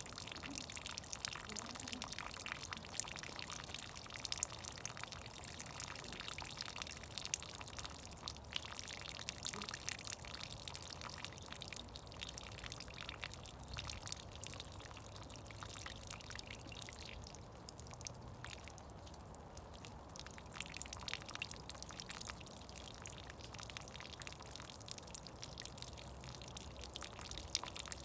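Meltwater from thawing snow dripping and trickling, a steady patter of many small drips close together.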